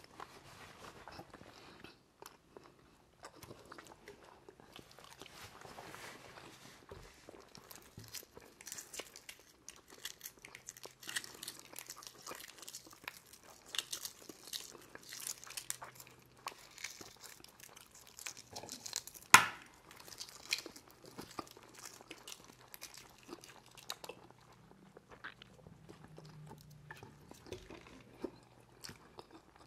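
Boiled eggs being peeled by hand, a run of small crackles and clicks as the shells break and come away, with chewing. One sharp knock stands out about two-thirds of the way through.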